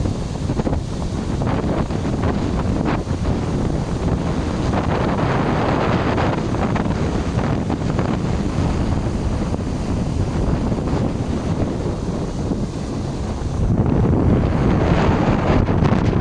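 Strong blizzard wind buffeting the microphone in a steady rush that gusts louder about 14 seconds in.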